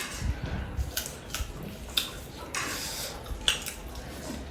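Close-up eating sounds: a few light clicks and scrapes against a plate of chicken biryani, with chewing between them.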